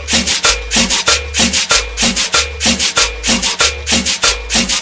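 Cumbia music stripped down to its rhythm: a güiro scraping a quick, even pattern, several strokes a second, over a repeating bass line.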